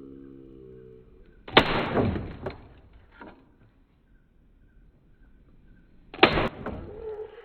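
Two heavy hammer blows on soda cans, about four and a half seconds apart, each a sharp crunching strike with a rattling tail; a couple of smaller knocks follow the first.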